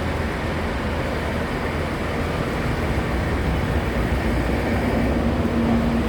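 Avanti West Coast Class 390 Pendolino electric train approaching: a steady rumble with a humming tone that comes in about a second and a half in and grows louder towards the end.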